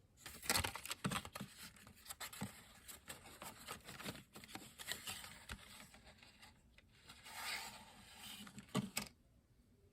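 A cardboard box of wooden pencils being handled: irregular scraping and rustling with small clicks as the pencils shift in the box, stopping about a second before the end.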